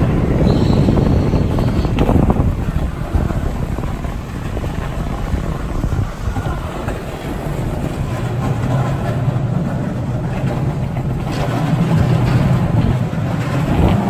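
Skateboard wheels rolling over a concrete floor: a steady, rough rumble, with wind buffeting the microphone.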